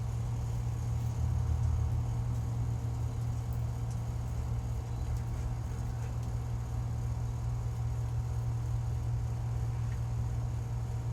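A steady low droning hum that does not change, with a few faint steady tones above it and nothing sudden.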